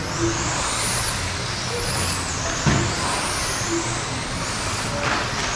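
Radio-controlled dirt oval sprint cars racing, their electric motors whining high and rising and falling in pitch with the throttle over a steady rushing noise. A brief knock comes just under three seconds in.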